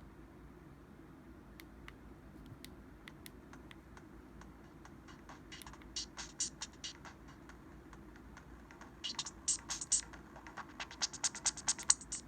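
Samsung Anycall SPH-W5200 phone speaker playing an electronic tone of short, rapid blips. It starts faintly with a few scattered clicks, comes in as a short cluster about six seconds in, and becomes a fast, louder run of blips from about nine seconds in.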